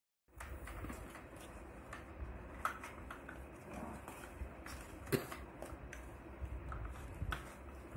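Hard plastic parts of a Luvlap baby walker being handled and fitted together: scattered light clicks and knocks, the sharpest about five seconds in, over low handling rustle.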